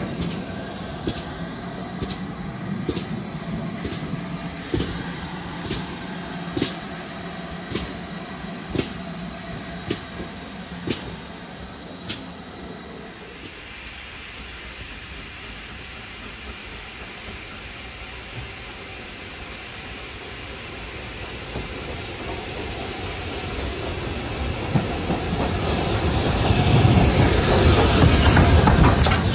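Steam-hauled train's wheels clicking over rail joints about once a second for the first twelve seconds or so, then a steady quieter running noise. Over the last few seconds a hissing noise builds up and grows much louder.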